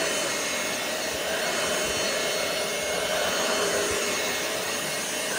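ROOMIE TEC SlimVac cordless upright vacuum cleaner running steadily: an even rush of air with a constant motor whine on top.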